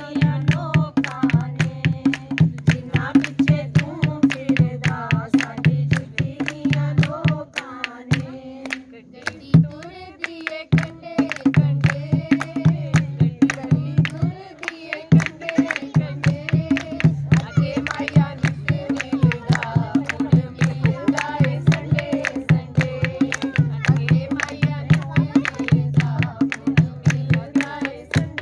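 Women singing Punjabi tappe, a folk song, to a hand-played dholki keeping a fast, steady beat. The drum drops out for a couple of seconds about eight seconds in, leaving the voice alone, then comes back.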